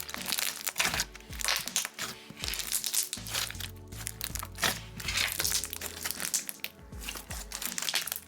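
Thick, glossy slime being stretched and squished by hand, giving off dense crackles and small pops, over background music.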